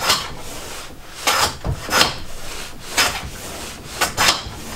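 Lie-Nielsen No.51 shooting board plane with its skewed blade pushed along a shooting board in short strokes about once a second, each a brief scrape as it takes a fine shaving off the end grain of an ash board. A low knock comes about a second and a half in.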